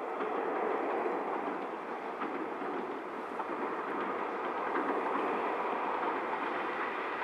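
An EP1M electric locomotive and its passenger coaches rolling past. The wheels on the rails make a steady rumble that grows louder in the first second.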